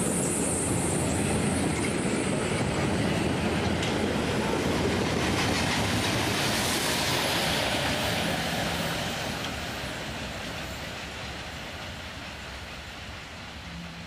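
A steam train of vintage coaches rolling past close by, its wheels clattering over the rail joints, with a louder hiss as its German 2-10-0 steam locomotive goes by about seven seconds in. The sound then fades steadily as the train moves away.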